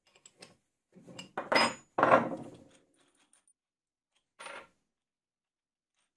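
Steel hardware, a wrench and washers, clattering on a wooden workbench: a few light clicks, then two loud metallic clatters close together with a short ring, and a shorter clatter a couple of seconds later.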